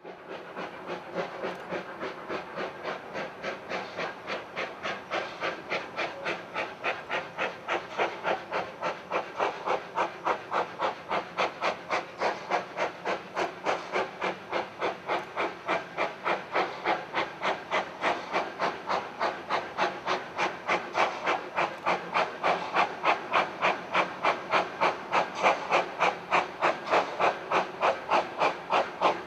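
Puffing Billy NA class 2-6-2T steam locomotive 8A working hard up a steep grade with a fully loaded train, its exhaust beating slowly and evenly at about two to three chuffs a second. The chuffs grow louder as the engine approaches.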